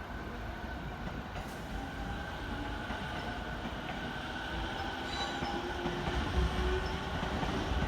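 An electric train running through a station: a steady rumble of wheels on rail with motor tones, and a faint high wheel squeal about five seconds in.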